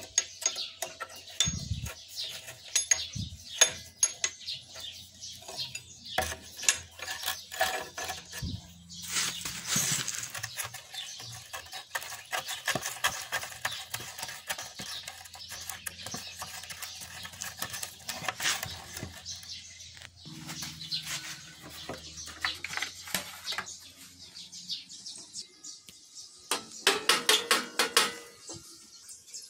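Metal clinks and knocks of a hand tool on a scooter's steering stem and fork as the front end is taken apart, with a quick run of rattling clicks near the end.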